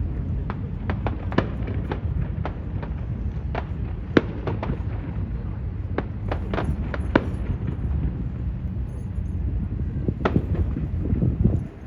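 Fireworks going off: a rapid, irregular run of sharp cracks and pops over a steady low rumble, with louder bangs about four seconds in and again near the end.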